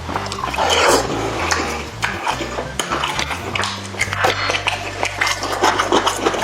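Close-miked mukbang eating sounds of spicy chicken and chicken feet: many quick wet clicks and smacks of chewing, with a louder noisy swell about a second in, over background music.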